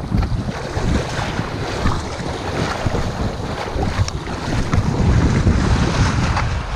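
Wind buffeting the microphone, over choppy sea water splashing and lapping.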